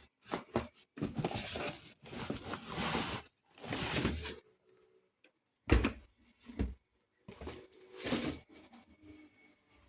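Handling noise as objects are picked up and moved: bursts of rustling broken by short gaps, with a few knocks. The loudest is a sharp thump almost six seconds in.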